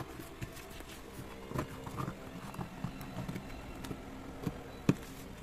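Long-bladed tailoring scissors cutting a cardboard pattern sheet along a curve: a run of irregular snips and crunches, with a sharper click near the end.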